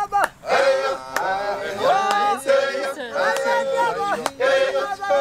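Maasai men singing together to accompany the adumu jumping dance, several voices holding notes in short repeated phrases.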